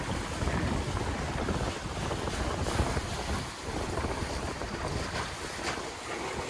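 Wind buffeting the microphone and waves splashing against the hull of a sailboat running downwind in choppy water.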